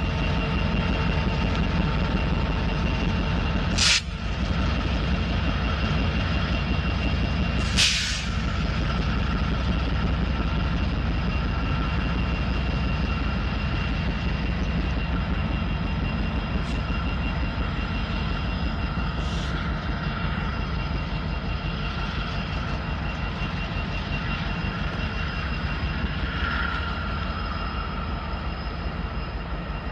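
Diesel freight locomotives running with a steady low rumble and a faint whine. About four seconds in, and again about four seconds later, there is a short, sharp hiss of escaping air.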